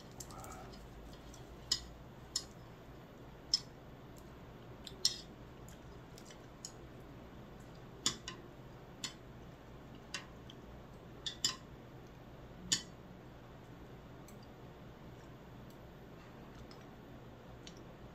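Metal chopsticks clicking together and tapping on dishes while eating: about a dozen sharp, separate clicks at irregular intervals, over a low room hum.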